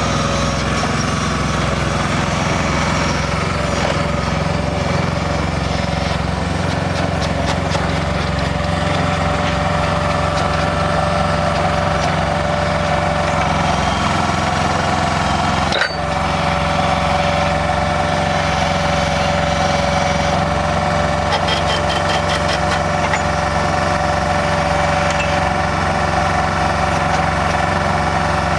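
Engine of a pile-driving machine running steadily, with stretches of fast light clicking now and then and a brief dropout about halfway through.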